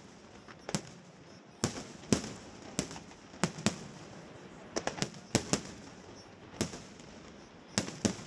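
Fireworks display: aerial shells bursting overhead in sharp bangs at irregular intervals, several coming in quick pairs.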